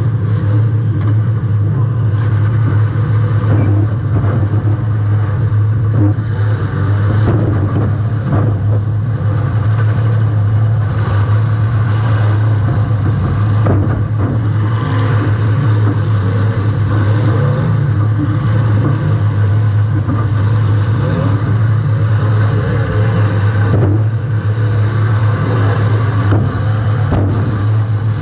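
Demolition derby compact car's engine running hard with a steady, loud drone, picked up by a camera mounted on the car. Several sudden bangs cut through it, typical of car-to-car hits in the derby.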